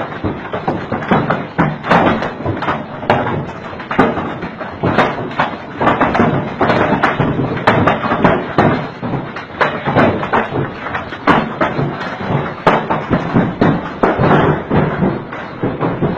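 Large hailstones pelting down in a heavy hailstorm: a dense, irregular clatter of hard hits over a steady hiss of falling rain and ice.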